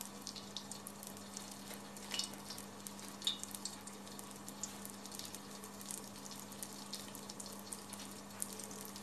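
Pişi dough frying in oil that is not yet fully hot, giving only a faint, sparse sizzle of scattered crackles and pops over a steady low hum.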